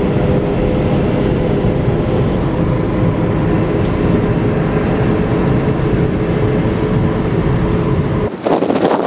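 Steady in-car road noise of a car driving at speed on a wet highway: engine hum with tyre and road rumble. Near the end it cuts abruptly to wind buffeting the microphone outdoors.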